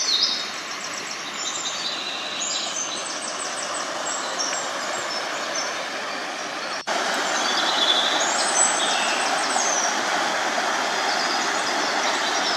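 Small mountain waterfall rushing steadily through rocks, louder after a sudden cut about seven seconds in. Small birds chirp briefly above the water noise.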